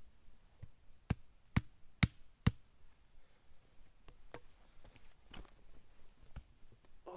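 Sharp knocks of wood on wood, four in quick succession at about two a second, followed by a few fainter scattered taps.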